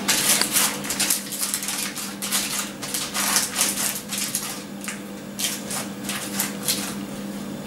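Baking paper crinkling and rustling in irregular bursts as hands press and shape bread dough in a paper-lined cast-iron pan, over a steady low hum.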